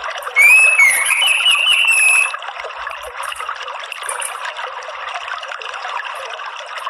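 Orange-headed thrush singing one loud, roughly two-second phrase of gliding, whistled notes near the start, over a steady trickle of running water. A few faint high chips follow later.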